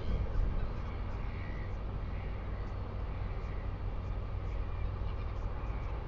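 Wind rumbling steadily on an outdoor microphone, with faint bird calls in the background a few times.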